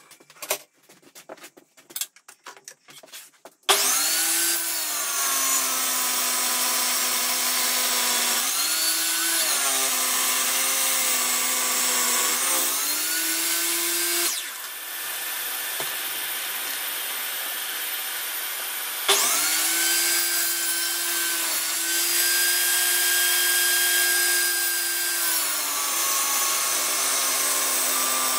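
A few clicks and knocks, then a table saw starts suddenly about four seconds in and cuts the edge of a round wooden board. Its motor whine dips in pitch as the blade is loaded and then recovers. About halfway through it goes quieter for several seconds, then starts up loudly again.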